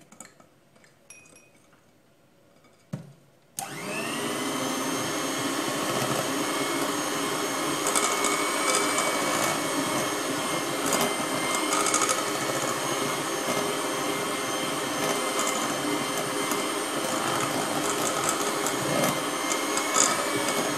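Electric mixer switched on about three and a half seconds in, after a short knock, and running steadily with a constant whine as it beats flour into cake batter.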